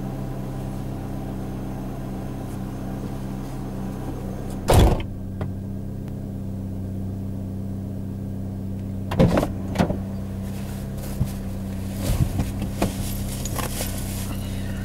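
A car engine idling steadily, with several sharp knocks or thumps over it, the loudest about five seconds in and a few more in the second half.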